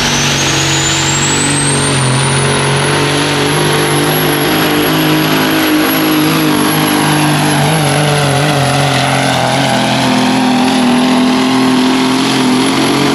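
Caterpillar diesel engine of a pulling semi truck running at full throttle under heavy load while it drags a weight-transfer sled. A high turbocharger whistle rises over the first three seconds, then holds high and steady.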